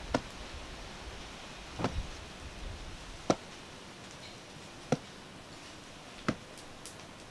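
A hand hoe chopping into loose garden soil, five dull strikes about a second and a half apart.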